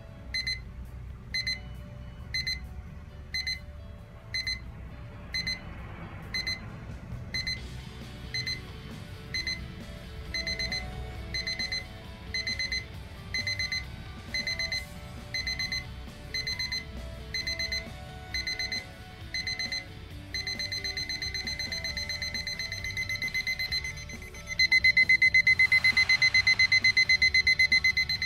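JCC 9903 digital alarm clock sounding its stepped crescendo alarm: high electronic beeps that start spaced out, then come in quicker groups, then run together as rapid continuous beeping that turns much louder about four seconds before the end. The beeping stops right at the end as the snooze bar is pressed.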